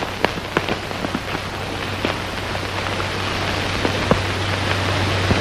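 Hoofbeats of a band of horses galloping: a dense clatter of many short hits that grows steadily louder.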